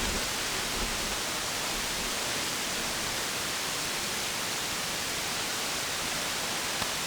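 Steady radio static: a CB radio receiver hissing on an open channel between transmissions, with no station keyed up.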